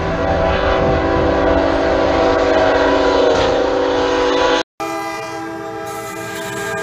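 Diesel locomotive air horn sounding one long, steady blast that cuts off suddenly after about four and a half seconds, followed at once by a second locomotive horn holding a steady chord.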